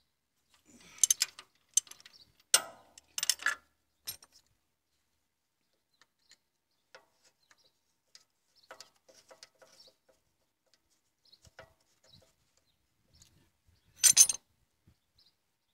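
Ratchet wrench clicking on engine fasteners, in short bursts of sharp clicks with faint metal tool ticks between them; the loudest burst comes near the end.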